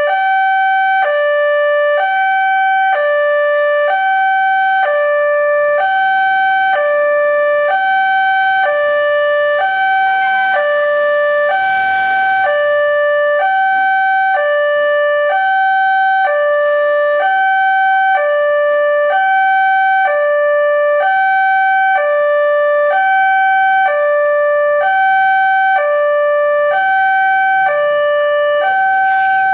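Railway level-crossing warning alarm sounding from the horn loudspeaker on the crossing pole: an electronic two-tone alarm alternating between a higher and a lower tone, each held about a second, warning that a train is approaching. A short rush of noise passes about twelve seconds in.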